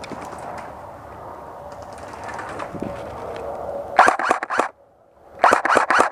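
Airsoft gunfire at close range: a quick string of four sharp shots about four seconds in, then four or five more about a second later, over a rustle of a player shifting behind cover.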